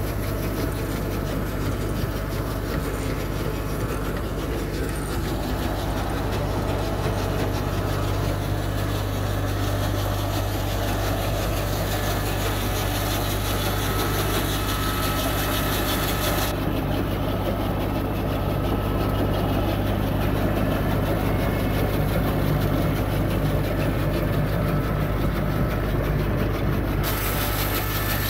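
Tractor engine running steadily as it powers a brick-making machine through its chain and gear drives, a constant low mechanical drone with no change in speed.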